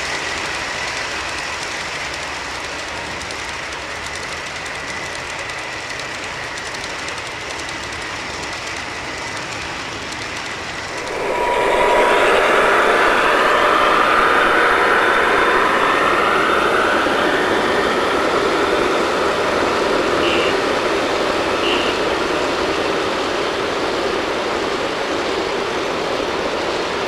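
G-scale model train cars rolling along garden-railroad track with a steady rolling rumble. About eleven seconds in, the sound turns louder and closer, with a high wheel squeal over the rolling noise.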